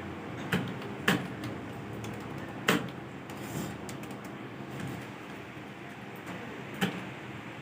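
Four separate, sharp clicks of computer keyboard keys being pressed slowly one at a time, over steady room noise.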